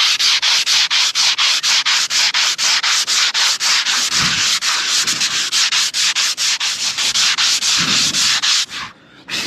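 Sandpaper rubbed back and forth by hand over the camper cell's fibreglass roof, stripping old, half-rubbery waterproof paint. Fast, even strokes, roughly four a second, that stop near the end.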